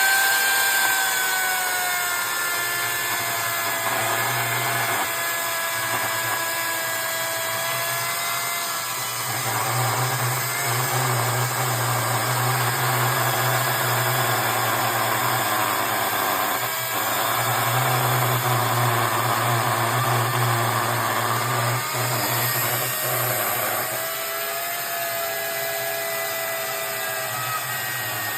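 Oregon electric chainsaw running, its motor whine dropping in pitch just after it starts and shifting now and then. A heavier low drone joins in twice, for several seconds each, around the middle.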